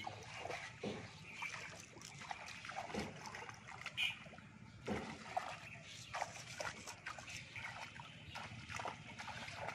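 Shallow water splashing and sloshing around wading legs in a flooded rice paddy, with a few sharper splashes between.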